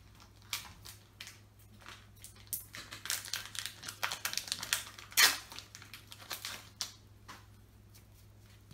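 Foil trading-card booster pack wrapper crinkling and being torn open, an irregular run of crackles with the loudest rip about five seconds in.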